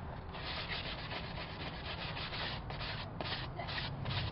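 Rubbing strokes on a pond liner, cleaning off remnants of old material before a patch goes on; they start about half a second in and become distinct strokes about two a second in the second half.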